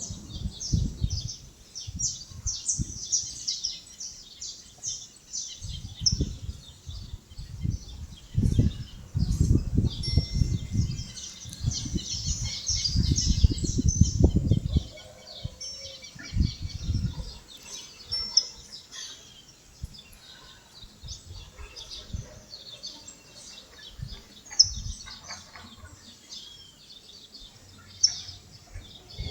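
Many small birds chirping and calling in short, high, quick notes. Low rumbling buffeting on the microphone comes and goes and is heaviest from about eight to fifteen seconds in.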